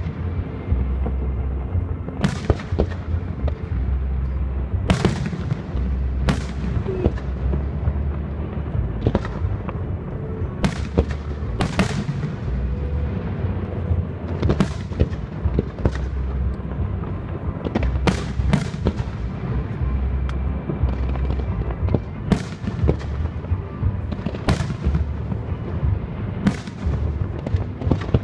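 Fireworks display: aerial shells and comets going off one after another, a sharp bang every second or two over a continuous low rumble.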